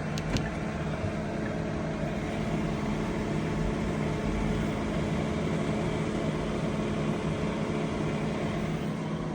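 Steady mechanical hum of a car, with a couple of light clicks about half a second in.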